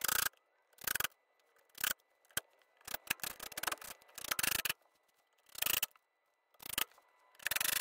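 A string of short, irregular clicks and rattles, about a dozen spread across several seconds, from a cordless drill and mounting hardware being handled. The first and one of the loudest comes right at the start, as the drill is pressed to the unit's mounting screws.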